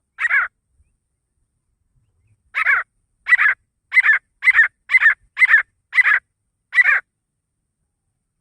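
Grey francolin (desi teetar) calling. One loud note, then after a pause a run of eight quick two-part notes at about two a second.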